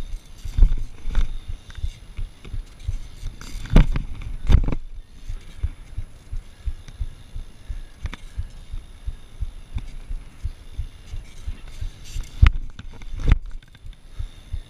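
Wind buffeting the microphone of a rider-worn action camera as a BMX bike rolls over concrete: a stream of irregular low thumps. A few sharper knocks from the bike and its tyres come about four seconds in and again near the end.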